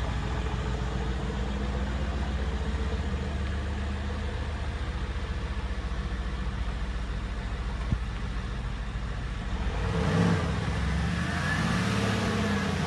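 2015 Mercedes-AMG C63 S's twin-turbo V8 idling steadily, then blipped near the end, its pitch rising and falling back to idle.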